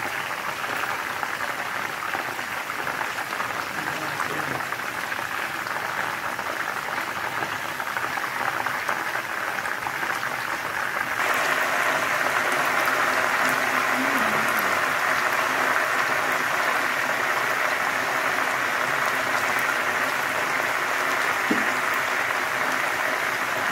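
Chicken pieces sizzling as they fry in hot oil in a pot: a steady sizzle that gets louder about eleven seconds in.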